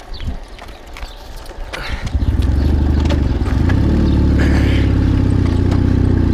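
Motorcycle being push-started. Light clatter while the bike is pushed, then about two seconds in the engine catches and keeps running loudly and steadily.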